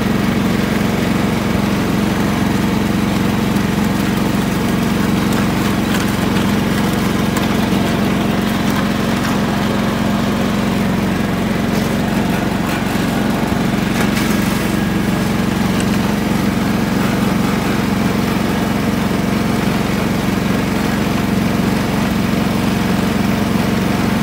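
Riding lawn mower's engine running steadily, holding one even speed with no revving.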